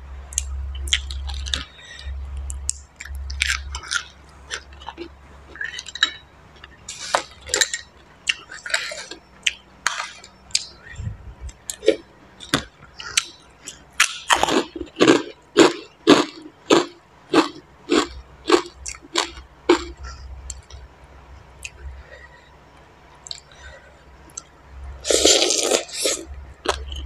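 Close-miked chewing and crunching of a mouthful of papaya salad with fresh greens, with scattered clicks at first, then steady chewing about three strokes a second, and a louder noisy sound about a second long near the end.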